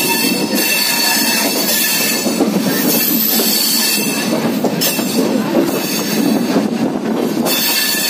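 Express passenger train's wheels running on the rails, heard from the open doorway of the moving coach, with a high wheel squeal that comes and goes over a steady rumble.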